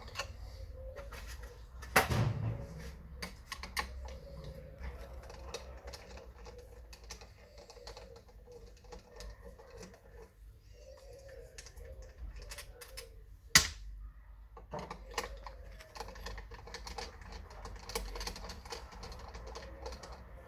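Mercedes OM651 biturbo four-cylinder diesel running with a steady low rumble and a rapid irregular clicking rattle, the rattle the car is being checked for. Two sharp knocks stand out, about 2 s in and about 13.5 s in.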